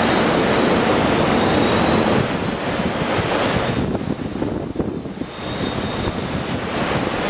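Strong hurricane wind blowing and buffeting the microphone in a steady rush. It eases about four seconds in, then builds again.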